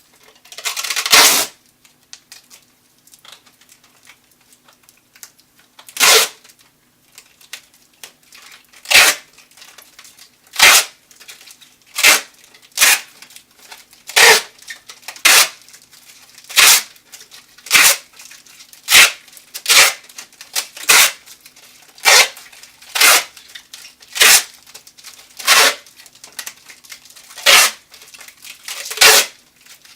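Adhesive tape pulled off a roll in short rasping rips: one about a second in, then from about six seconds in a run of rips at roughly one a second. A faint steady hum sits underneath.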